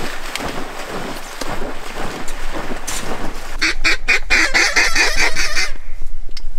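Duck quacking: softer scattered quacks at first, then about two seconds in the middle of loud, fast quacks, roughly six a second, that stop suddenly.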